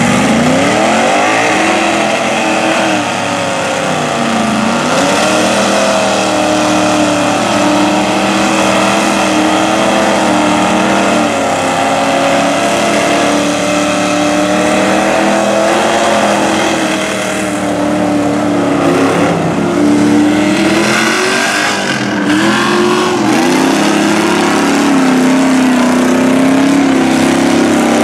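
Big mud trucks on huge tyres running through a mud pit, their engines revving hard, the pitch climbing steeply at the start, then rising and falling as the throttle is worked.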